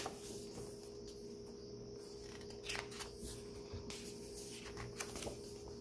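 Pages of a photo book being handled and turned, a few soft paper rustles and brushes, over a faint steady hum.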